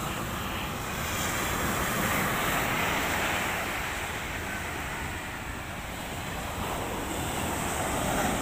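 Sea surf washing onto the beach, a steady rushing noise that swells louder about a second in and again near the end, with wind rumbling on the microphone.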